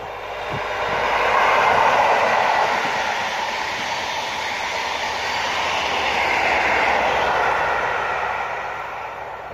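HST with Class 43 diesel power cars (Network Rail's New Measurement Train) passing at speed. The noise swells as the leading power car goes by about a second and a half in, holds under the coaches, swells again as the rear power car passes about six to seven seconds in, then fades away.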